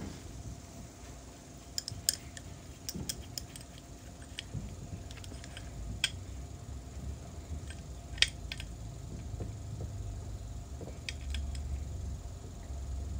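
Irregular sharp clicks and light metallic clinks of small parts or tools being handled, over a low rumble that grows louder near the end.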